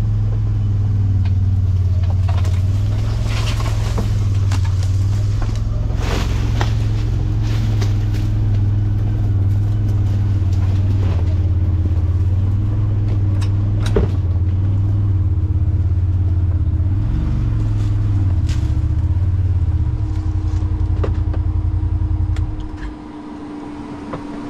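Side-by-side UTV engine running steadily as the machine drives along a rough woods trail, with scattered knocks and rattles from the ride. About two seconds before the end, the engine note drops away sharply as the machine slows to a stop.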